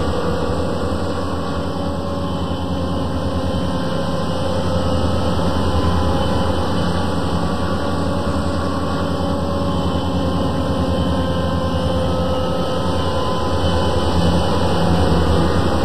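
Sound-equipped HO scale model of a Rio Grande SD40T-2 diesel locomotive, its onboard speaker playing a steady diesel engine drone as the train runs, swelling a little near the end.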